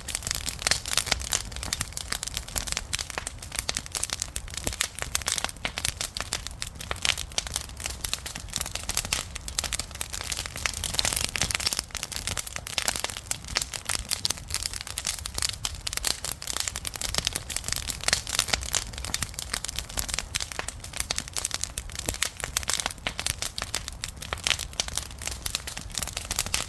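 Wood fire burning and crackling steadily, with dense, irregular pops and snaps over a low rumble.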